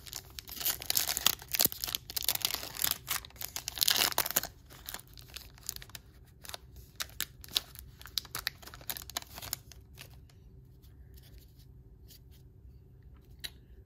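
A 2020 Bowman baseball card pack wrapper being torn open and crinkled, loudest over the first four seconds or so. Then lighter clicks and rustles as the stack of cards is handled and thumbed through, fading out about ten seconds in.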